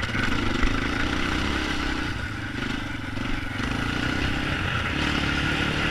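Yamaha Raptor 250 ATV's single-cylinder four-stroke engine running under changing throttle on a trail, its note dipping and picking up again a couple of times and holding a little higher near the end, with rattling from the machine.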